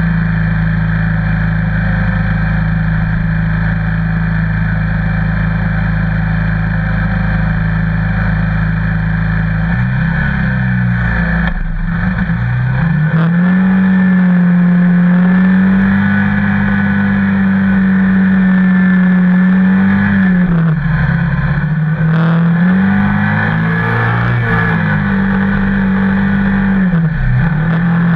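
Engine of a vehicle towing a sled on a rope. It idles steadily for about ten seconds, then pulls away, its pitch rising and dipping several times as it speeds up and eases off.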